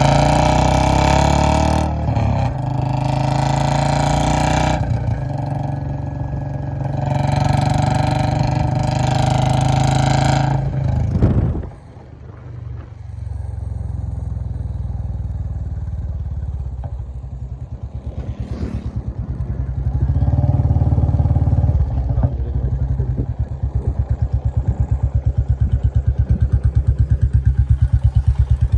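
Royal Enfield 350 J-series single-cylinder motorcycle with an aftermarket short-bottle silencer, run hard at high revs in first gear for the first ten seconds or so. About twelve seconds in it drops to a slower, even exhaust thump. That thump grows louder again from around twenty seconds, with each firing pulse distinct.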